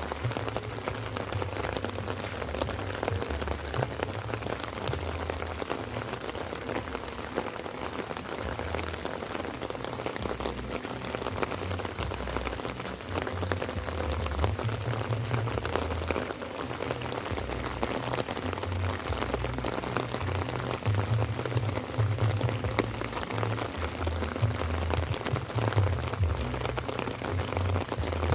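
Light rain falling, a steady patter of many small drops, with an uneven low rumble underneath that swells and fades.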